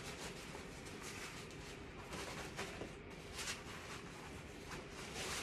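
Rustling and swishing of a nylon gear bag as an Osprey Poco child-carrier backpack is pulled out of it: several short fabric swishes over a low steady background.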